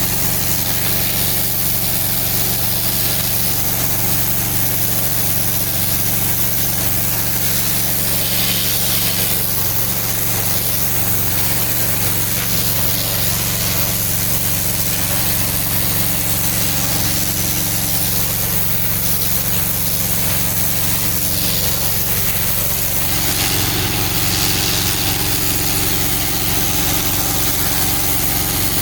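Engine-driven pressure washer running steadily, its motor humming under the hiss of high-pressure water spray. The engine note shifts slightly about three-quarters of the way through.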